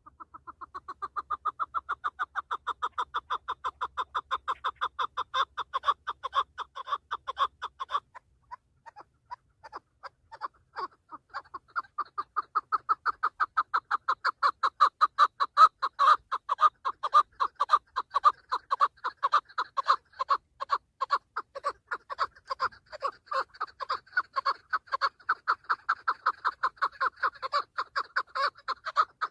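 Chukar partridge calling: a rapid series of clucking notes, about five or six a second. The calling breaks off after about eight seconds, then starts again and grows louder.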